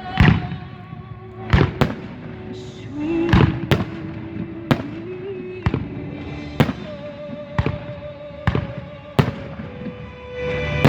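Fireworks going off in a series of about ten sharp, loud bangs at uneven intervals, some coming in quick pairs.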